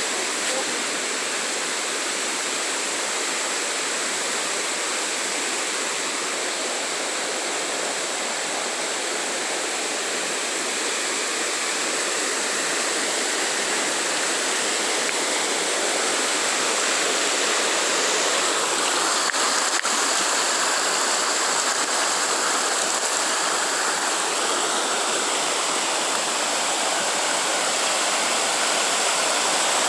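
Waterfall pouring steadily: an even rush of falling water, a little louder in the second half.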